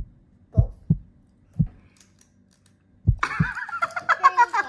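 A few soft, dull thumps, about five over three seconds, like bumps against the table or the phone. Then a lively burst of edited-in music starts about three seconds in.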